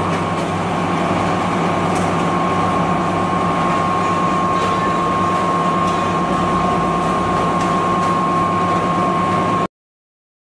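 Lisheng screw oil press (oil expeller) running steadily: a constant mechanical drone with a steady high whine and a low hum. It cuts off suddenly near the end.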